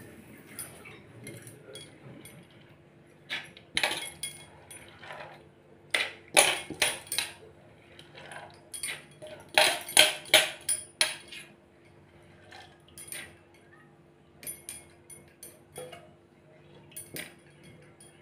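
Stainless steel bowls and lids clinking and knocking together as they are handled, in irregular bursts of sharp metallic clinks, loudest about ten seconds in.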